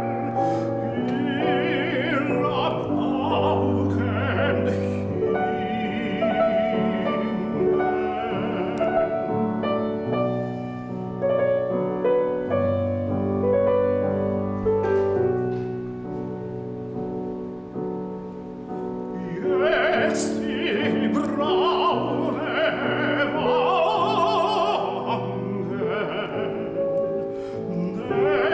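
Operatic tenor voice singing a classical song with grand piano accompaniment: long held notes with vibrato, and a quieter passage in the middle before the voice swells again.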